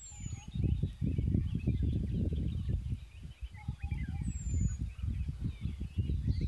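Wind buffeting the microphone in uneven gusts, with birds chirping faintly in the background.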